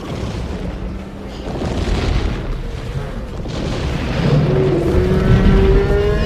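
Sound-effect dinosaur herd stampeding: a deep, continuous rumble of heavy footfalls with repeated booms. A long, low bellowing call comes in about halfway through and rises slightly in pitch.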